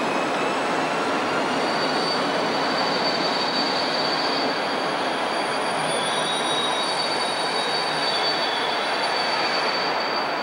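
Deutsche Reichsbahn electric locomotive rolling slowly past, its steel wheels squealing in high, drawn-out tones over the steady running noise of the train.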